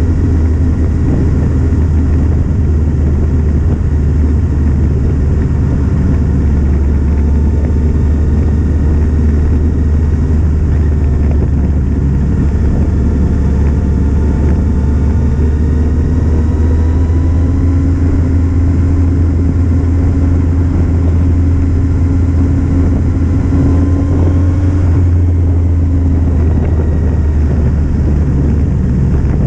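Kawasaki Z750's inline-four engine running on the move, its note climbing gradually over several seconds at a time, with a break about 25 seconds in. A heavy low rumble of wind on the camera microphone is the loudest part.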